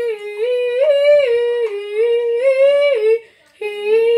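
A child humming a wordless tune: a run of held notes stepping up and down, breaking off about three seconds in, then one more note near the end.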